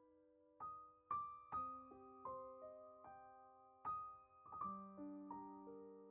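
Quiet background piano music: single notes struck one after another in a gentle melody, each ringing on and fading while the next sounds.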